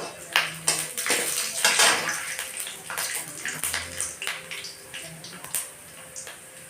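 Metal utensils clinking and scraping against a cooking pot, a string of short knocks with a noisier swishing stretch about two seconds in.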